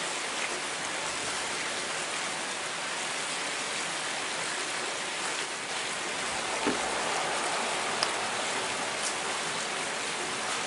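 Steady rushing water noise, with a soft knock about two-thirds of the way through and a sharp click about a second later.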